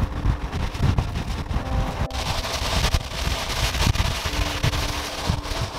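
Wind buffeting a microphone mounted low on the side of a moving VW bus, over the hiss of its tyres running through spray on a wet road. The hiss grows louder about two seconds in.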